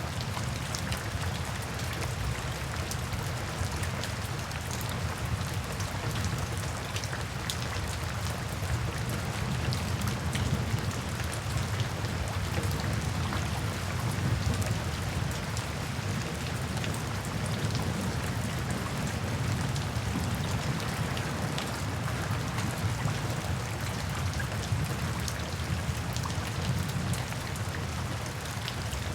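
Steady rain falling on hard surfaces, with many separate drops ticking, over a continuous low rumble.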